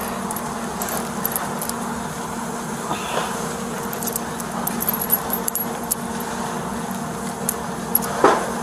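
Metal chain rattling and clinking in the hands as it is pulled and worked loose from a wooden fence, with a louder clank near the end, over a steady low hum.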